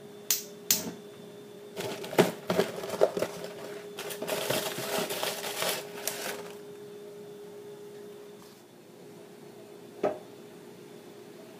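Kitchen handling sounds: a few sharp clicks and knocks, then about two seconds of rustling and crinkling, and one more knock near the end, over a faint steady hum.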